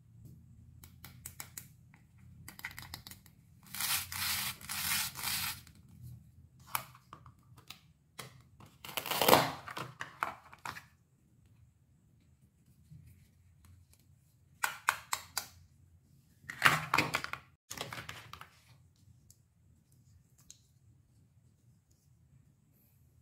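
Velcro strips ripping apart as halves of plastic toy fruit and vegetables are pulled open, about four rips a few seconds apart, with light clicks of hard plastic pieces being handled between them.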